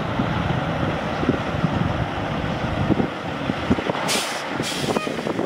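Caterpillar C15 diesel engine of a Peterbilt 387 semi truck running with a steady rumble. About four seconds in there are two short hisses of released air, half a second apart, from the truck's air system.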